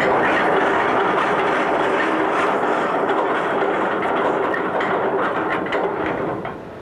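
Ship's anchor chain running out over the windlass: a loud, continuous rattling clatter of heavy chain links that cuts off near the end.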